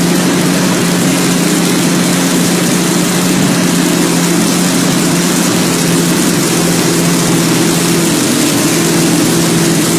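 V12 engine running at a steady speed, a constant low tone with no revving.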